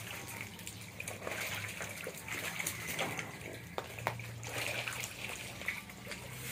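Shallow water in a frog pen trickling and sloshing, with scattered small splashes and ticks.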